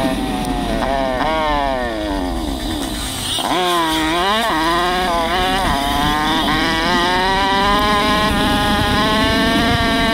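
Chinese 125cc four-stroke dirt bike engine under way: the revs fall off for about three seconds, then rise sharply and climb steadily, with a few brief dips along the way.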